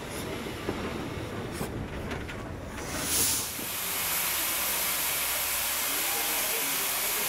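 Steam hissing over a low rumble from a steam locomotive. About three seconds in, after a brief louder burst, a loud, steady hiss of steam escapes from standing LSWR Beattie 2-4-0 well tank 30587.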